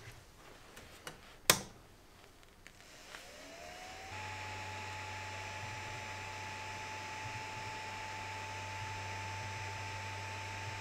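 Creality Ender 3 V2 3D printer switched on: a sharp click of the power switch about a second and a half in, then its cooling fans spin up with a rising whine and settle into a steady whir and hum as the printer boots.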